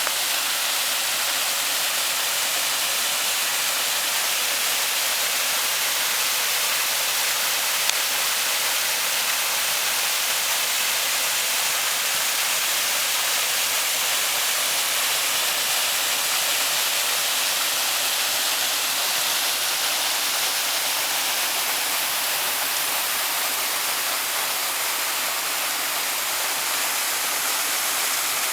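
Waterfall: water pouring and splashing in a steady rushing hiss, mostly high-pitched with little low rumble.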